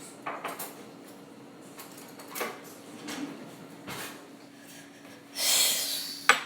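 Kitchen handling noise while a utensil is fetched: a few light knocks and clicks over a faint steady hum, then near the end a loud scraping rush of about a second and a sharp clack.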